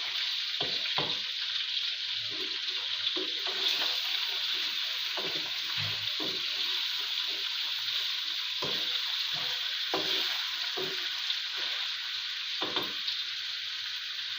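Chicken frying in hot oil in a pan, a steady sizzle, with a spoon scraping and knocking against the pan at irregular moments as it is stirred.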